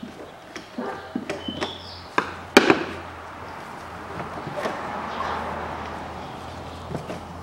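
Plastic air-intake duct and air filter housing being worked loose by gloved hands: a series of sharp plastic clicks and knocks, the loudest about two and a half seconds in, followed by a longer rubbing, scraping noise.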